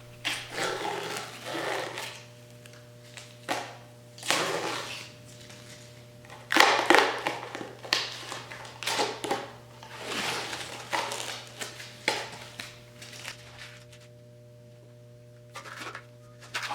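A thread tap working through the threaded holes of an engine block, making irregular bursts of scraping noise, each up to about two seconds long. A steady electrical hum runs underneath.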